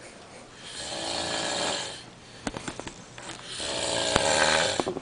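A man snoring in his sleep: two long snores, each lasting over a second, with a few faint clicks in the pause between them.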